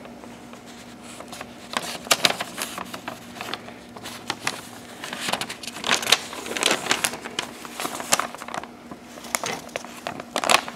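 Newsprint flyer pages rustling and crackling as they are handled and turned, in three bursts of rustle with quieter stretches between.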